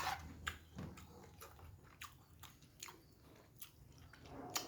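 A person eating close to the microphone, chewing with irregular short wet clicks and smacks of the mouth.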